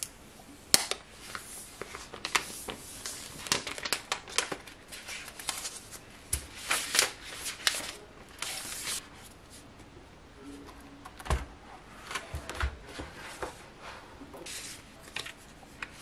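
Paper and plastic packaging of an iPad Magic Keyboard rustling and crinkling in close-up as the keyboard is unwrapped from its protective sheet and its paper documentation sleeve is handled. A few soft, low knocks come through as the keyboard is set down and moved on the table.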